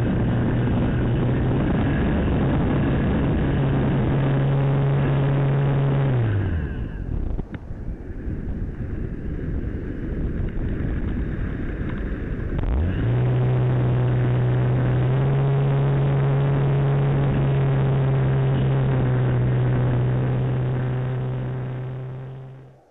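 Electric motor and propeller of an Easy Glider Pro model glider running at a steady pitch, heard from on board the plane. About six seconds in the motor winds down and stops, leaving wind rush while it glides. About thirteen seconds in it spins back up and runs steady again, then fades out at the very end.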